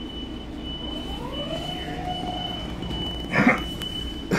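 Interior of a Long Island Rail Road passenger coach: a steady low running rumble with a thin high whine that keeps breaking off, as the train pulls into a station. A dog barks once about three and a half seconds in, the loudest sound.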